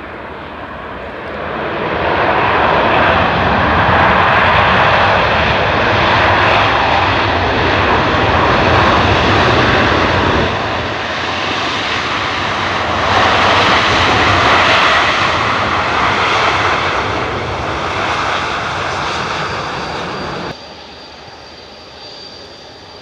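Jet engine noise of a Boeing 787-8 airliner on its runway roll, from its Rolls-Royce Trent 1000 turbofans. It swells about two seconds in and stays loud, then drops sharply to a quieter rumble near the end.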